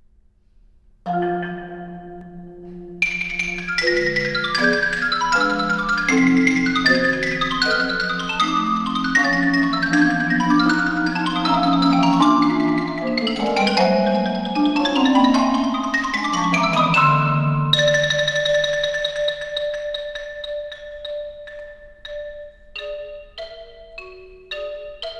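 Xylophone and a marimba trio playing a ragtime-style piece. The marimbas open with a sustained chord about a second in, and the xylophone joins a couple of seconds later with fast runs over the marimba chords. Toward the end the marimba chords fade and the xylophone plays short, separate notes.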